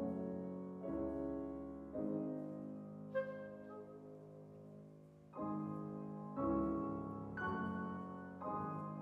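Two pianos playing slow, soft sustained chords, about one a second with a pause near the middle, and a clarinet playing a two-note falling cuckoo call about three seconds in.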